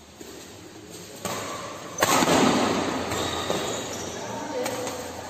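Spectators shouting and cheering in a badminton hall. The noise breaks out suddenly about two seconds in and slowly dies down, with a few sharp racket hits on the shuttlecock.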